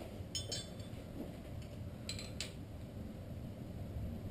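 Light metallic clinks of hand tools, a spanner and feeler gauges, being handled: a faint click about half a second in and two sharper chinks a little after two seconds.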